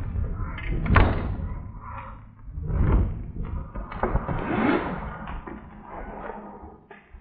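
A few knocks and thumps with rustling handling noise in between; the sharpest knock comes about a second in.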